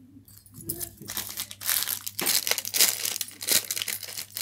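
Irregular crinkling and rustling handling noise, starting quietly and growing dense and crackly about a second and a half in.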